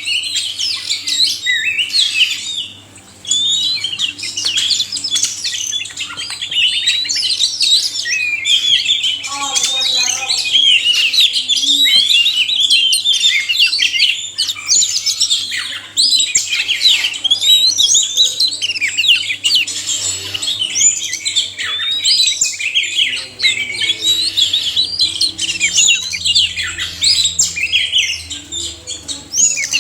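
Oriental magpie-robins, male and female, singing without pause: a dense run of rapid, sliding whistles and chattering phrases, with a brief lull about three seconds in.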